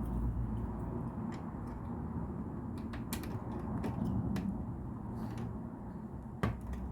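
LEGO pieces being handled and pressed together: scattered small plastic clicks and taps, the sharpest about six and a half seconds in.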